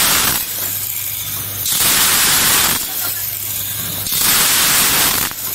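UP360K-II vertical grain packing machine running its bagging cycle: a hissing rush, as of grain pouring down the filling funnel, about every 2.4 s, three times, taking turns with a steady low hum.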